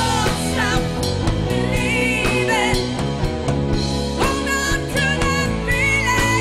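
A band playing a song: a singer holds long, wavering notes over a drum kit and bass.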